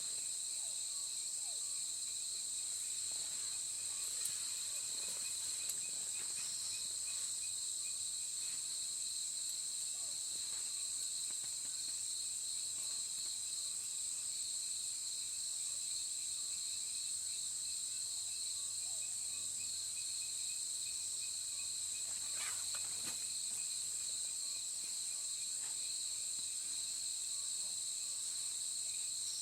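A steady chorus of insects trilling, a continuous high-pitched drone that never lets up, with a few faint clicks around four to six seconds in and again past twenty seconds.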